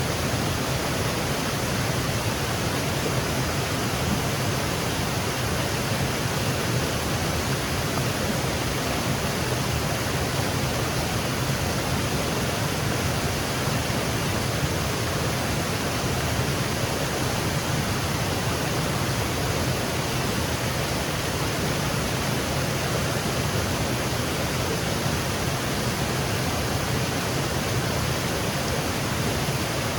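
Small woodland waterfall cascading over rocks: a steady, unbroken rush of water.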